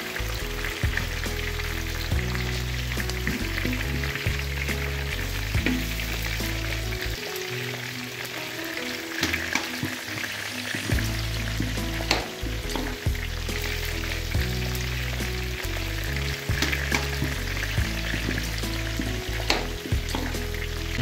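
Diced pork fat frying in its own rendered oil in a metal wok: a steady sizzle with a few sharp pops. Background music plays underneath.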